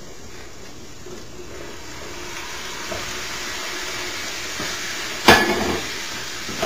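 Browned ground beef tipped into a hot skillet of sautéed onions, green pepper and garlic, the frying sizzle growing louder as the meat goes in. A single sharp metallic clank about five seconds in.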